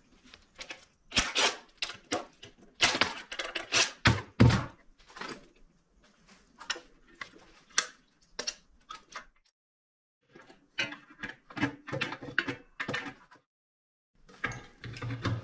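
Irregular knocks, thunks and clatter from the plastic fuel tank of a Predator 212 engine being unbolted and worked loose by hand, with tools and parts knocking on a metal tray.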